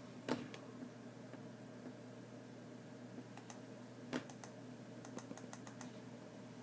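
Clicking at a computer: two sharp clicks about four seconds apart, with lighter clicks between and after, over a steady low hum.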